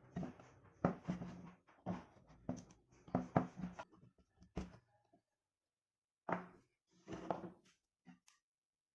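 Wooden board and wooden blocks being handled on a tabletop: a series of short knocks and scrapes of wood on wood, several in quick succession, then a pause and a few more.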